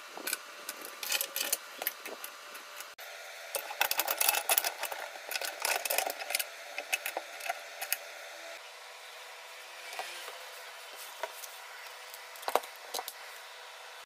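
Red metal corner clamps being handled and clipped onto the edges of wooden board panels: quick small metallic clicks and rattles with light knocks on the wood, thinning out about halfway through.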